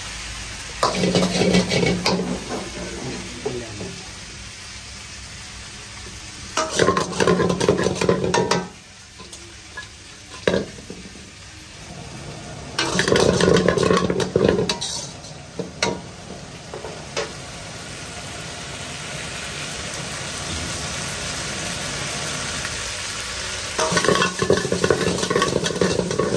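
Stir-frying in a wok: steady sizzling of food in hot oil, with a metal ladle scraping and clanging against the pan in four loud spells of about two seconds each.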